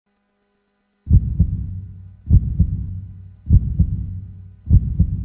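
Heartbeat sound effect: a slow, low double thump (lub-dub) about every 1.2 seconds, four beats starting about a second in, each trailing off into a low hum.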